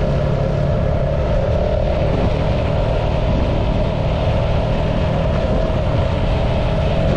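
Steady running noise from the moving vehicle carrying the camera: engine and road noise with wind, unchanging throughout.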